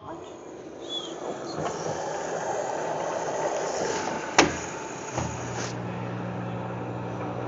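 Washing machine with water rushing in through its inlet while it drains, a sign of the fill valve running when it shouldn't. There is a sharp click about four and a half seconds in. Just after five seconds the water rush stops and a steady low hum carries on.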